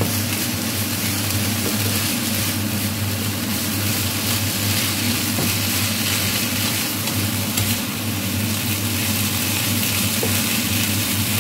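Chopped garlic leaves and chili sizzling in hot oil in a pan as a spatula stirs them. A steady low hum runs underneath.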